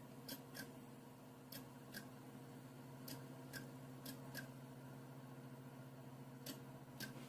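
Faint, sharp clicks, mostly in pairs a fraction of a second apart, about a dozen in all, over a steady electrical hum.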